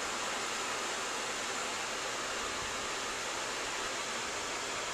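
Steady, even hiss of background noise with no other sound.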